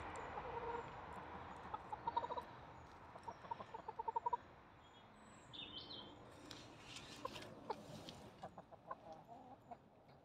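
Hens clucking softly in quick runs of low clucks, about two seconds in and again from about three to four seconds in, followed by scattered light clicks and rustles.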